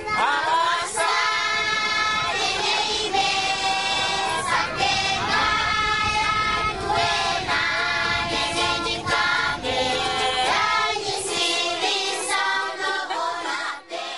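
A group of children singing together in sung phrases, with the voices dropping away near the end.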